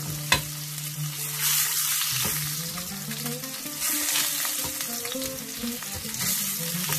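Salmon pieces sizzling in hot oil in a frying pan, with a spatula scraping and clicking against the pan as the fried pieces are lifted out.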